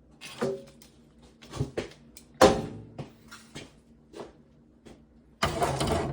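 Irregular knocks and clatter from hands handling tools and wiring, with the loudest knock about two and a half seconds in and about a second of dense rustling noise near the end.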